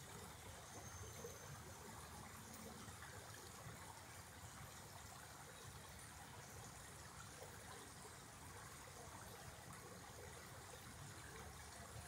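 Faint, steady sound of a shallow creek running over rocks and riffles.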